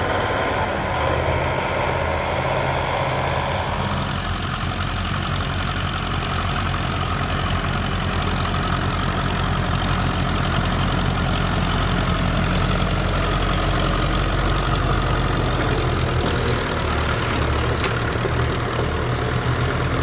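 Vintage grey Ferguson tractor's engine running steadily.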